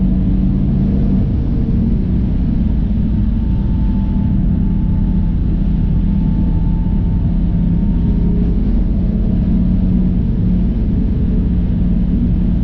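Tuned 600 bhp turbocharged B58 straight-six of a BMW M140i running at fairly steady revs while driving, heard from inside the cabin through a GoPro's built-in microphone. A steady hiss from the tyres on the wet track sits under the engine.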